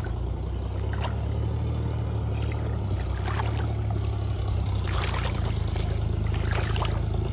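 Shallow floodwater sloshing and splashing around a wader's legs as a weighted cast net is lifted and moved through it, with several short splashes. A steady low rumble runs underneath.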